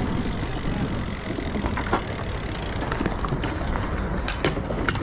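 BMX bike rolling over concrete: a steady tyre rumble with scattered light clicks and knocks from the bike.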